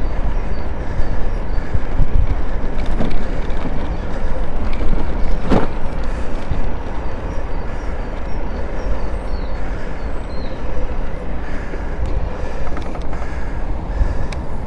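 Wind buffeting the microphone of a camera on a moving e-bike, with tyre and road noise: a loud, steady, rumbling rush. A brief sharper sound cuts through about five and a half seconds in.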